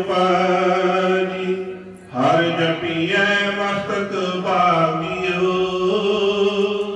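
Sikh devotional kirtan: long, drawn-out sung notes over a steady held drone, in two long phrases with a brief break about two seconds in.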